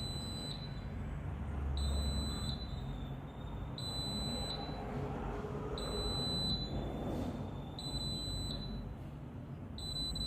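Risco alarm system's buzzer sounding the exit-delay countdown after arming: a high beep about every two seconds, each about half a second long.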